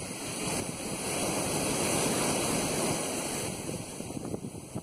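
Ocean surf breaking and washing up a sandy beach, swelling about a second in and easing off near the end, with wind buffeting the microphone.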